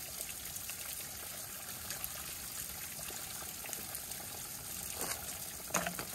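Small mountain spring trickling and splashing down a rock face, with a plastic water bottle held in the flow to fill it. A few short clicks near the end.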